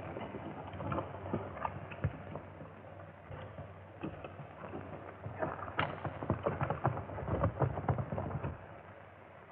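Hoofbeats of a group of horses galloping, a dense irregular clatter that swells again about six seconds in and dies away near the end.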